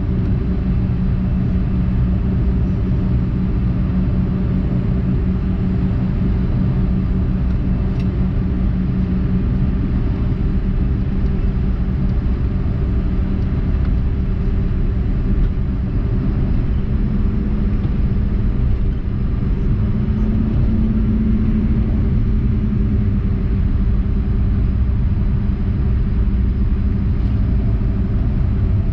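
Cabin noise of a Bombardier CRJ-200 regional jet taxiing: a steady low rumble and hum from its rear-mounted GE CF34 turbofans at taxi power. The hum climbs slightly higher for a few seconds past the middle.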